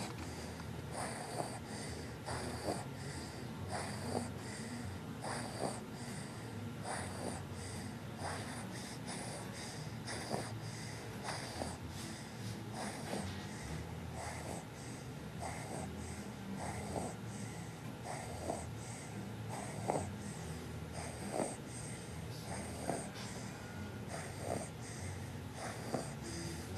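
A person snoring in sleep, short breathy snores coming in a fairly regular rhythm, about one every second and a half.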